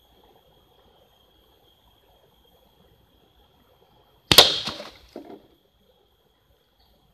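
One sharp crack about four seconds in as a pellet from a homemade PVC air rifle strikes the target and knocks it off its post, with a smaller clatter about a second later as it falls. Underneath run a steady high tone and a creek trickling faintly.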